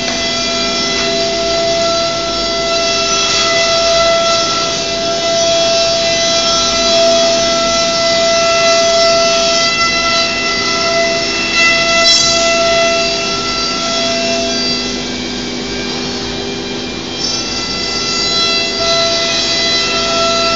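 CNC router spindle running with a steady high whine while the gantry head routes a wood panel, a noisy cutting and dust-extraction hiss under the whine.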